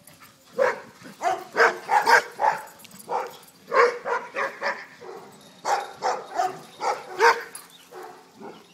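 Dog barking repeatedly during rough-and-tumble play, short sharp barks coming in three quick runs of several barks each.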